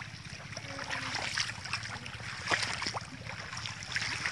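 Shallow muddy pond water splashing and sloshing as people wade and handle fish, with many small irregular splashes and a steady low rumble underneath.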